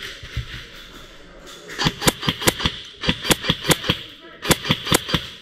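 Airsoft gun firing in three quick strings of sharp shots, about six a second, with short pauses between the strings.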